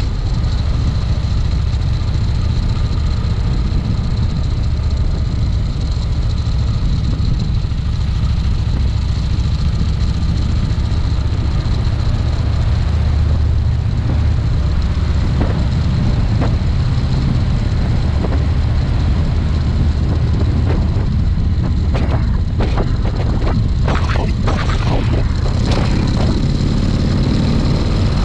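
Harley-Davidson V-twin motorcycle engine running steadily under way, with wind rush. There is a run of short crackles over the last several seconds.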